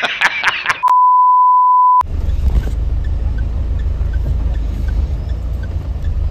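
A man's recorded laughter in short bursts that ends within the first second, then a censor beep: one steady high tone about a second long. It cuts off sharply, and a low steady rumble from the off-road vehicle follows.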